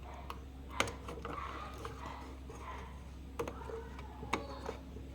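A few sharp clicks or light knocks, the loudest about a second in and two more near the end, over a steady low electrical hum.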